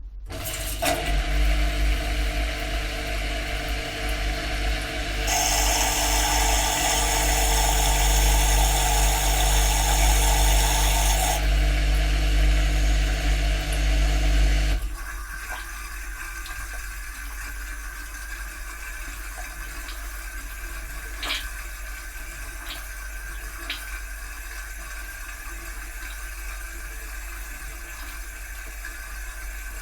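Dishwasher running its cycle, heard from inside the machine: a motor hum and rushing water start suddenly, grow louder for several seconds, then cut off about fifteen seconds in. A quieter steady water noise with a few faint clicks is left.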